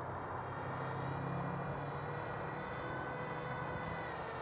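Small electric motor and propeller of a Bixler 1 RC foam plane whining as it flies overhead, its pitch falling slowly from about halfway through.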